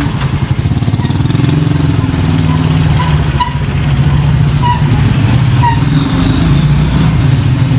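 A small motorcycle engine, as on a motorized tricycle, running close by: a steady low, rapid throb that gets a little louder about three seconds in.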